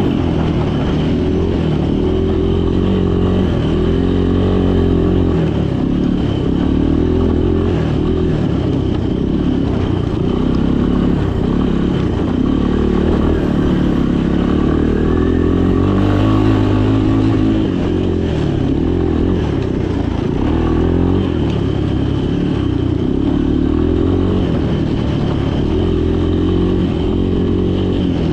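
Three-wheeler ATV engine running under load as it is ridden, its pitch rising and falling with the throttle, over a thin steady high whine.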